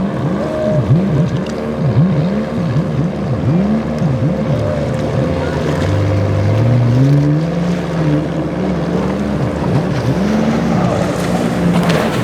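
Motorboat engines running hard, their pitch repeatedly dipping and rising over the first half, as happens when throttle is worked through rough inlet waves. Around the middle an engine pitch climbs more steadily, over the rush of water and wind.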